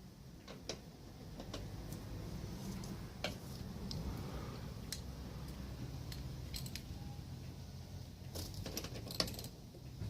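Scattered metallic clicks and clinks of hand tools and parts being handled, with a quick run of clinks near the end, over a low steady hum.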